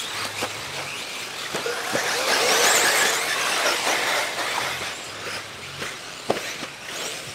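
1/5-scale electric RC buggy passing close on dirt: its electric motor whine and tyre noise swell up about two seconds in, peak around three seconds and fade away, with scattered sharp clicks.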